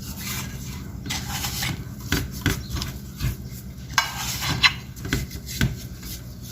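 Irregular light knocks and rubbing, as of things being handled, over a steady low hum.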